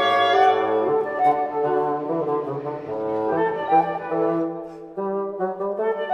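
Instrumental music of held, brass-like notes and chords, changing every second or so.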